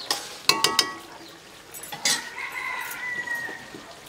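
A few quick, sharp ringing clanks of metal cookware about half a second in, then a rooster crows once, a drawn-out call lasting about a second and a half.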